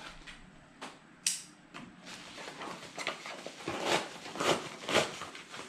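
Plastic mailer bag crinkling as it is handled, then being slit open with a small knife: a run of repeated rustling, tearing strokes through the second half.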